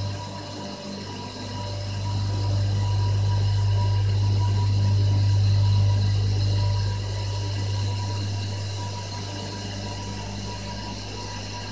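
Steam turbine-generator sets running at a power station: a steady deep hum with several steady high whines over it. It grows louder about two seconds in and eases off again about seven seconds in.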